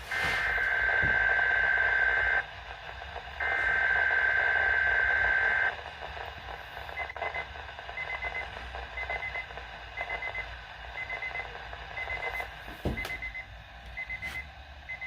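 SAME digital header of a Weather Radio Canada required monthly test over a weather radio: two loud two-tone data bursts about two seconds long, a second apart. Then a faint short high beep repeats about once a second from the alerting receiver.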